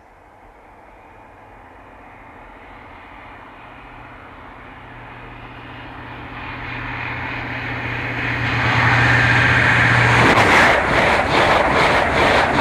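A High Speed Train (InterCity 125) approaching and passing at speed. A steady engine drone and a rushing rail noise grow louder for about ten seconds. The drone cuts off as the power car goes by, and the coaches then rush past with a rapid beat of wheels over the rails.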